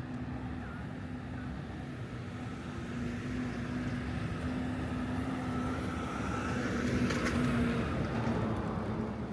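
City street traffic: a steady low rumble with a held hum, and a car passing, loudest about seven seconds in.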